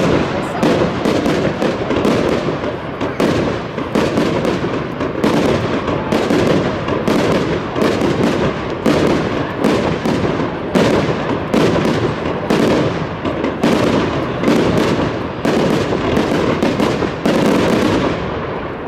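Aerial fireworks display: a rapid, unbroken barrage of loud bangs, about two a second.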